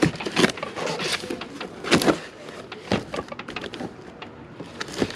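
Bayonet blade slicing packing tape and cardboard along the top seam of a shipping box: a run of irregular rough scraping, ripping strokes, the loudest about two seconds in.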